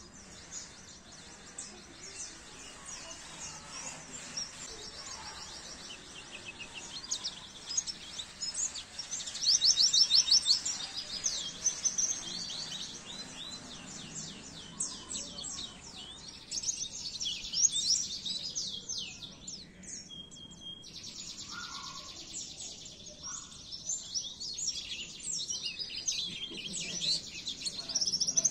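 White-eye (pleci) song: long runs of rapid, high-pitched twittering trills, loudest about a third of the way in.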